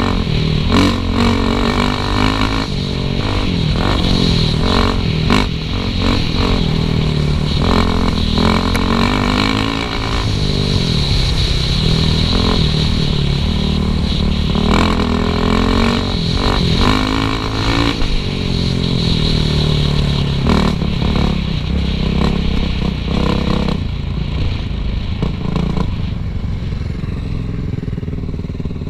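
Suzuki RM-Z450 four-stroke single-cylinder dirt bike engine revving up and down through the gears while riding a trail, with clatter and knocks from the bike over rough ground. The engine eases off near the end.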